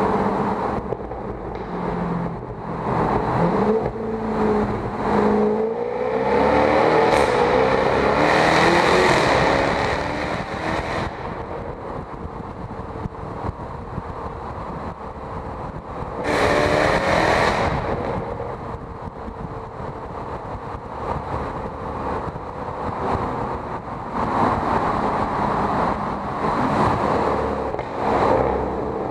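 The supercharged V8 of a 2014 Jaguar F-Type V8 S being driven hard, its exhaust note climbing in pitch under acceleration and echoing off the tunnel walls. There are two long, loud full-throttle pulls, one about a quarter of the way in and a shorter one past the middle, with lighter surges of throttle in between.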